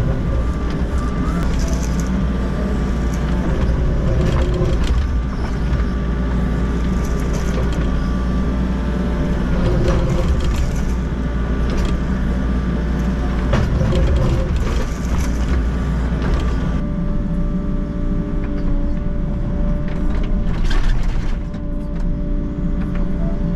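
Volvo excavator's diesel engine and hydraulics working under load, heard from inside the cab as the bucket digs into soil and stones, with occasional knocks. About seventeen seconds in the sound turns duller and steadier.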